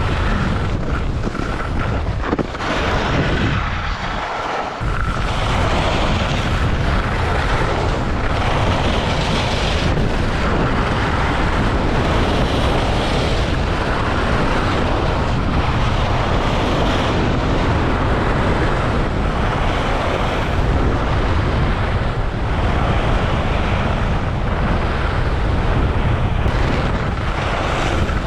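Wind rushing and buffeting over a helmet-mounted action camera's microphone during a ski run: a loud, steady roar that eases briefly about four seconds in.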